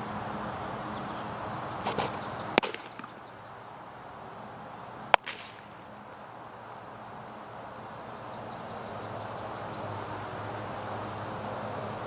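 Two sharp leather pops: a baseball smacking into the catcher's mitt about two and a half seconds in, then a louder snap about five seconds in as the ball thrown back lands in the pitcher's glove. A high, fast trill sounds twice in the background over steady outdoor hiss.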